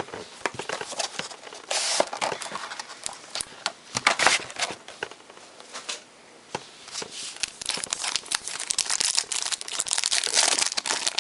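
Plastic wrapping of a trading card box being crinkled and torn open by hand, in irregular bursts, with a quieter lull in the middle.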